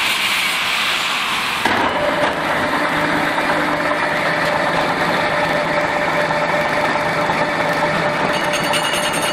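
Two-head CNC facing and milling machine running, both spindle heads turning as they mill the ends of a cast fire-hydrant body: a steady mechanical drone with a thin steady whine, its sound shifting about two seconds in.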